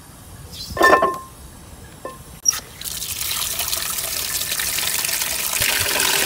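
A brief knock with a short ringing tone about a second in, then tap water running from about three seconds in, splashing steadily into a plastic bowl of blanched chicken feet being rinsed.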